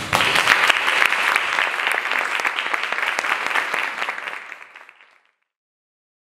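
Theatre audience applauding, dense clapping that starts right away and fades out about five seconds in.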